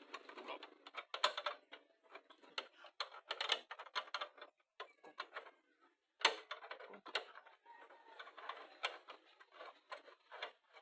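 Irregular clicks, taps and light knocks of parts and tools being handled while a pressure washer is put together by hand, coming in clusters with brief pauses.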